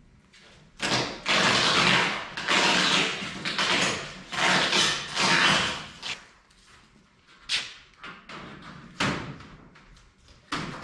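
Rustling and scraping of a thin race-car body panel being handled and worked into place, in several long runs. Three single sharp knocks follow, spaced a second or two apart near the end.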